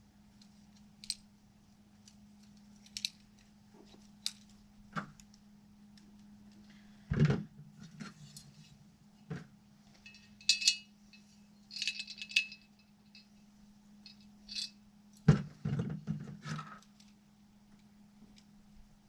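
Small metal parts and hand tools clinking and tapping during hands-on work, with scattered clicks, a few short metallic rings and two louder knocks, over a steady low hum.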